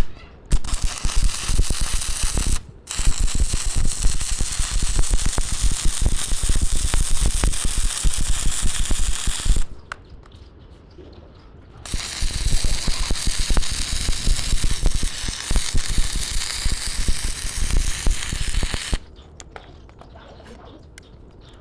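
Electric arc welding crackling steadily in three runs of a few seconds each, broken by short pauses, as weld is built up on a sprocket.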